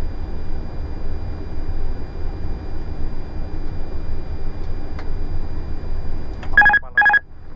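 Steady airflow and engine noise in an Airbus A330-300 cockpit on final approach. Near the end, two short electronic beeps come about half a second apart.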